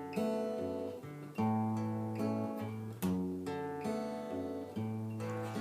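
Acoustic guitar strumming chords, a chord struck about every one to two seconds and left to ring out.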